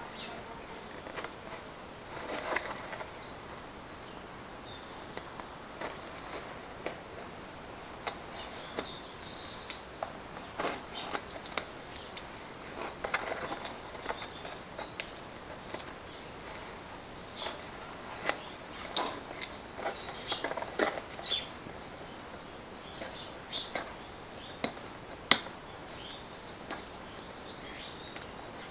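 Stiff paper crinkling and crackling in the hands as paper is peeled off a hardened paper canopy shell for an RC helicopter, in scattered short crackles and rustles with pauses between them.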